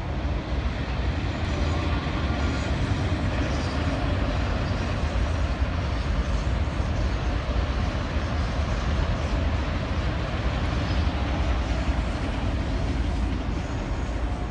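Steady low rumble and rushing road noise of a car in motion.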